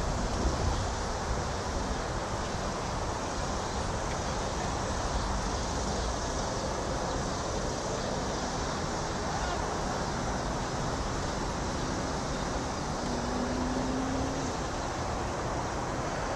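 Steady outdoor hum of distant road traffic, with a low rumble and no distinct event.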